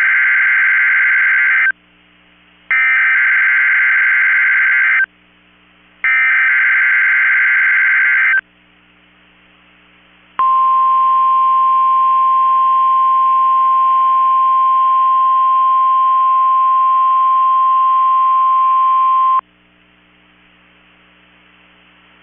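NOAA Weather Radio Required Weekly Test alert: three bursts of SAME digital header data, a buzzing warble each about two seconds long with a gap of about a second between them. Then the 1050 Hz warning alarm tone sounds steadily for about nine seconds and cuts off suddenly.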